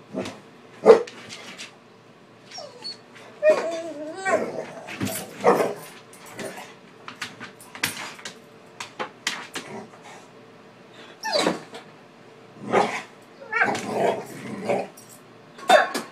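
A dog attacking a squeaky toy: irregular short squeaks of the toy mixed with the dog's own noises, coming in quick bursts with short pauses between.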